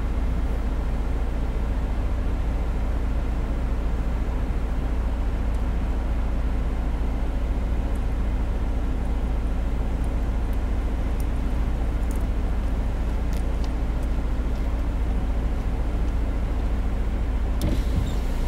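A car engine idling steadily: an even, low hum that does not change.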